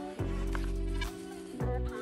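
Background music with deep bass notes and held tones.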